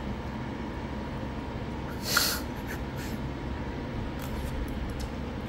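Steady low room hum, with one short breathy sniff about two seconds in from a man eating crab.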